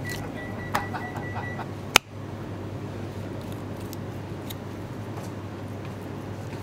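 Steady low hum of kitchen background. A thin high tone with light clicks runs for the first second and a half, and there is one sharp click about two seconds in.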